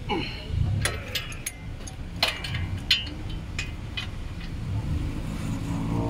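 Scattered sharp metallic clicks and clinks from a ratchet on a long extension tightening the bolts at the back of a front wheel hub assembly. A low droning hum builds near the end.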